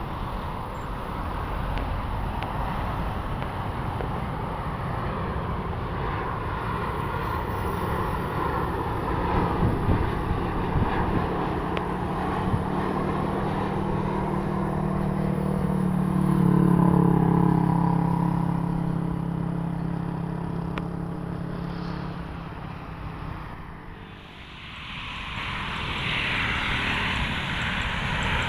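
Jet aircraft engine noise at an airport: a steady rumble that swells to a droning hum, loudest about 17 seconds in, and fades after about 22 seconds. A brief lull follows, then a rising hiss as another jet approaches near the end.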